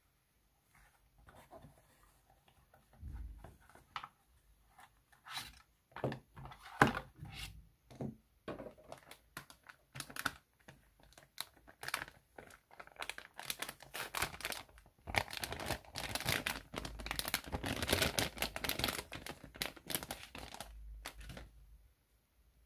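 Cardboard packaging and a crinkly metallized antistatic bag being handled: scattered rustles and knocks at first, then a dense stretch of crinkling, the loudest part, in the second half as the bag is opened and the PCIe Wi-Fi card taken out.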